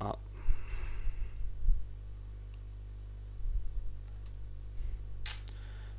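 Computer keyboard keystrokes and clicks in three short clusters, with dull knocks, over a steady low hum.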